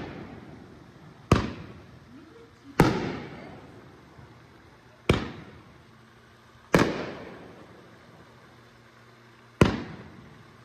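Aerial fireworks going off: five sharp bangs at irregular gaps of one to three seconds, each trailing off in a long fading echo.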